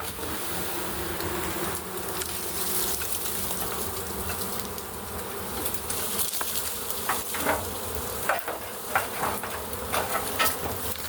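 Dense, steady buzzing of a large honey bee swarm, with many bees flying close around. From about seven seconds in, it is overlaid by frequent short ticks and crackles.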